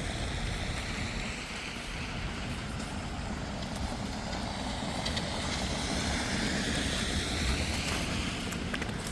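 Steady street traffic noise, with a vehicle's tyre hiss swelling and then fading in the second half.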